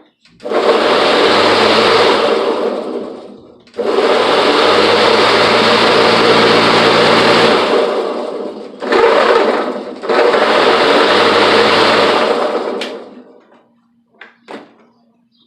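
Battery-powered electric lawnmower's motor and blade started and run for a few seconds at a time, three or four times, winding down after each run. The mower now starts, its loose battery reconnected to the bracket.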